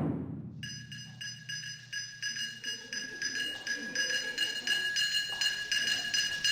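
A deep taiko drum stroke rings out. Then, under a second in, small hand-held metal percussion starts a steady beat of about four light strokes a second, its bright metallic ring hanging between the strokes.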